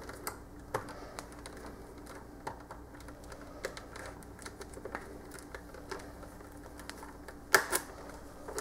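Light, scattered clicks and taps of fingers and tools working the wiring and plastic parts of a food dehydrator's base, with a short cluster of sharper clicks near the end.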